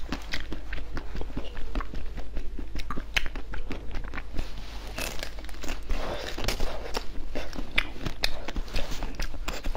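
Biting and chewing into a frozen treat: repeated sharp crunches and cracks mixed with chewing, with a denser run of crunching about halfway through.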